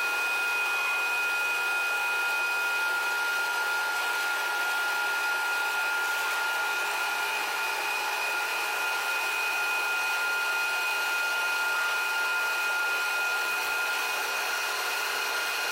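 Ring rolling machine running steadily: an even hiss with two high, steady whining tones, unchanging throughout.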